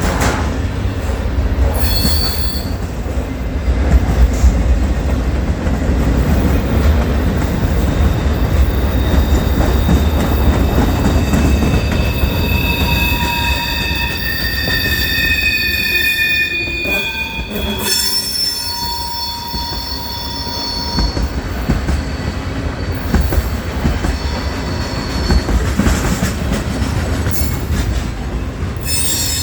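Train running with a heavy, continuous low rumble, overlaid by high-pitched wheel squeal. The squeal comes briefly about two seconds in, then several shrill tones, some sliding in pitch, ring together from about twelve to twenty-one seconds, with a shorter squeal again near the end.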